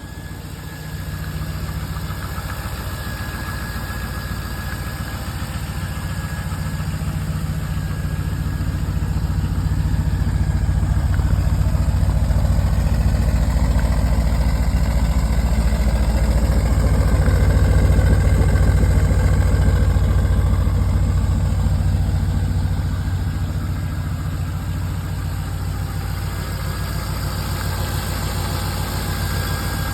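LS V8 swapped into a C3 Corvette, idling steadily through its exhaust with the exhaust leaks repaired. The idle grows louder for a stretch in the middle and then settles back.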